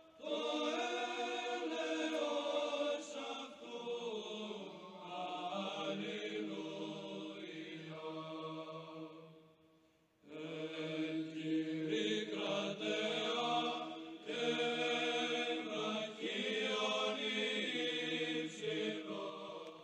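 Slow vocal church chant: voices hold long sung notes in two phrases, with a short break about halfway through.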